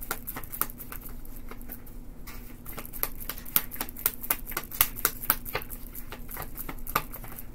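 A deck of tarot cards being shuffled by hand: a rapid, irregular run of soft card clicks and flaps, several a second, over a faint steady hum.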